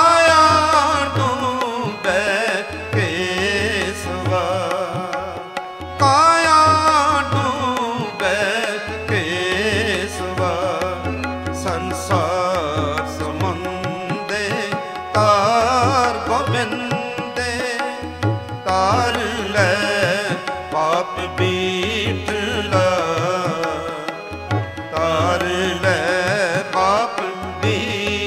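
Sikh kirtan: a singer draws out long, ornamented melodic phrases of the shabad without clear words, over a steady tabla rhythm and instrumental accompaniment.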